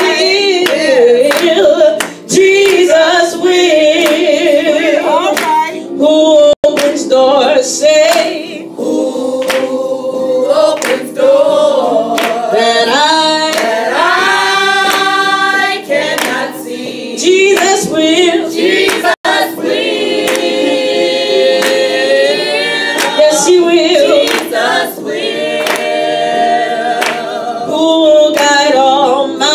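Small gospel group singing with a woman's lead voice, the others joining on long held notes, and hands clapping along.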